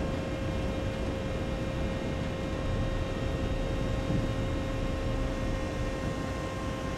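Ship's deck machinery humming steadily, several constant whining tones over a rumbling noise, with a soft knock about four seconds in.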